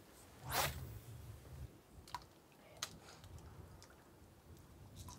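A fishing cast: a quick swish as the rod whips forward and line zips off the reel about half a second in, followed by a few faint sharp clicks, over a low rumble.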